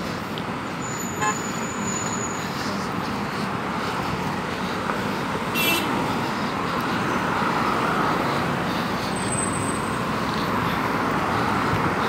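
Steady road traffic noise from passing cars, with a couple of brief high-pitched squeaks, one about a second in and one near six seconds.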